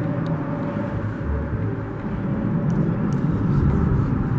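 Steady low rumble of road traffic on the highway bridge overhead.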